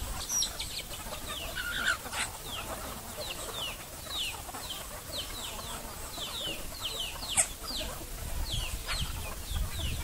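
A flock of free-range chickens clucking and chirping, with many short high calls that fall in pitch, several a second.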